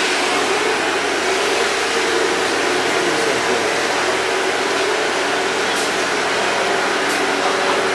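Steady drone and hiss of a train idling at the platform.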